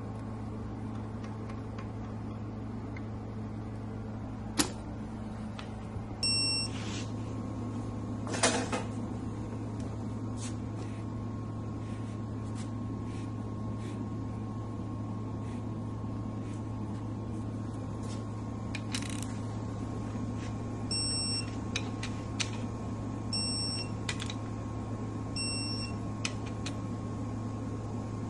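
Engine-assembly work on a 2JZ block: a few sharp metal clicks and knocks over a steady hum, and short electronic beeps, one about six seconds in and three more about two seconds apart near the end, as the main-cap bolts are torqued.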